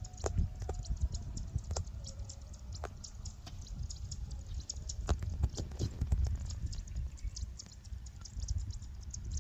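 Wind rumbling on the microphone, with many small irregular clicks and crackles over it.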